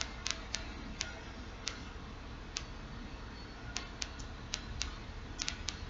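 Irregularly spaced sharp clicks, about a dozen, several bunched together near the end, over a faint steady low hum.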